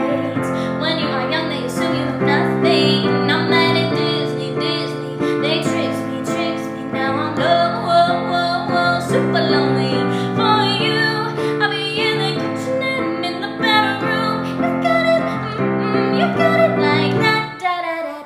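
Pop music: a female voice singing over sustained keyboard chords.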